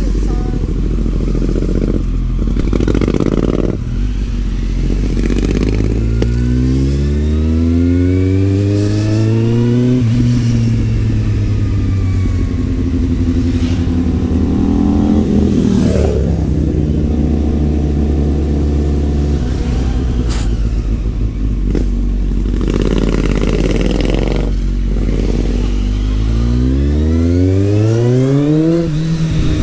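Kawasaki Z750 inline-four motorcycle engine under way, revving up through the gears: its pitch climbs and drops back at a gear change about ten seconds in, then climbs again to another change near the end.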